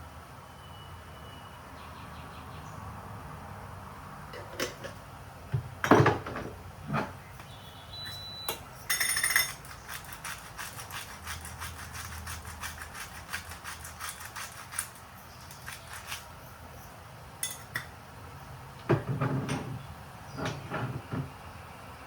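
Kitchen handling sounds: scattered knocks and clinks of dishes and utensils, loudest about six seconds in, with a run of quick light taps through the middle. A couple of short, high electronic beeps, like those of a kitchen appliance, sound near the start and about eight seconds in.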